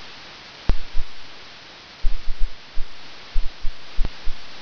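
Computer keyboard keystrokes: irregular clusters of dull thuds and clicks over a steady background hiss.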